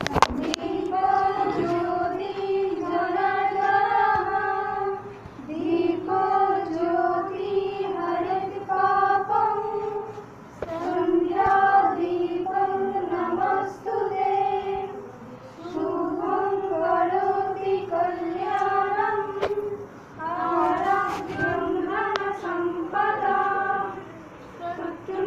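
A group of women singing together in unison, unaccompanied, in sustained phrases of a few seconds separated by brief breaths. There is a single sharp knock just after the start.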